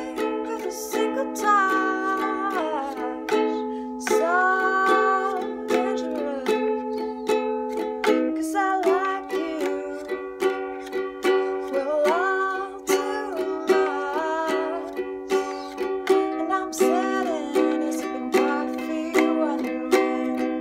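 A woman singing a slow love song while strumming chords on a small acoustic stringed instrument, the strums regular under her sung phrases.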